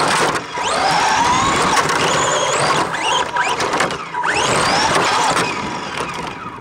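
RC car's motor whining and rising in pitch several times as the car speeds up, over the rushing noise of its wheels on concrete; it fades near the end.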